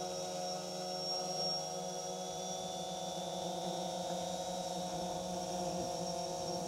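Multirotor drone's propellers humming steadily in flight, a buzz of several tones whose pitch wavers slightly as the drone turns through the figure-eight.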